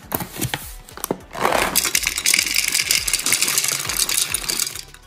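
Cashew pieces poured from a paper bag into a plastic food-chopper bowl. First come scattered clicks of single nuts landing, then from about a second and a half in, a loud, dense rattle of a steady pour, which stops just before the end.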